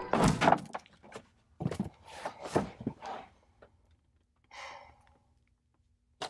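A woman sighing and breathing softly, with a few short, soft sounds scattered around the breaths.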